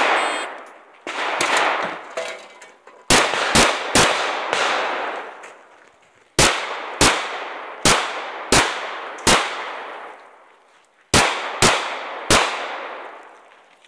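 Eleven shots from a 9mm Glock pistol fired in three quick strings of three, five and three, each shot ringing out and echoing as it fades.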